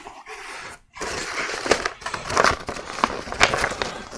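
Cardboard box flaps and paper flyers rustling and crinkling as things are pulled out of the box by hand, with scattered sharp crackles. The sound breaks off briefly about a second in.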